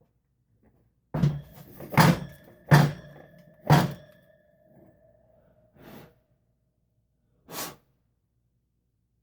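A new oil seal being knocked down into a Yamaha Virago fork leg with a length of PVC pipe. There are six knocks: four about a second apart, then two more spaced out. A ringing tone hangs on for a couple of seconds after the first four.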